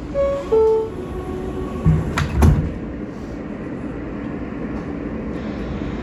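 R160A subway car's two-note falling door chime, followed about two seconds in by the doors thudding shut, over the car's steady hum.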